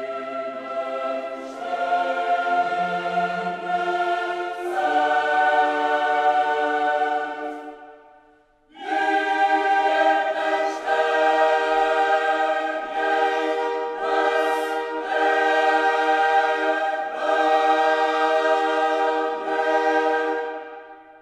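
Background music: a choir singing long held chords. It breaks off briefly about eight seconds in, comes back in full, and fades out near the end.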